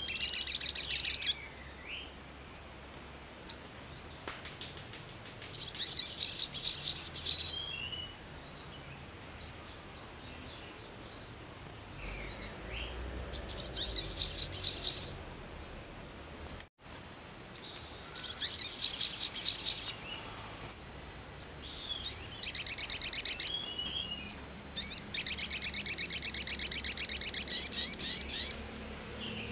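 Male olive-backed sunbird (kolibri sogon) in full song: six bursts of fast, high trilling a few seconds apart, the longest near the end, with short sharp chips between them.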